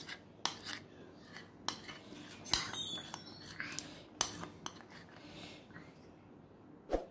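Metal spoon scraping thick chocolate batter off the inside of a glass bowl, with irregular soft scrapes and a few sharp clinks of spoon on glass.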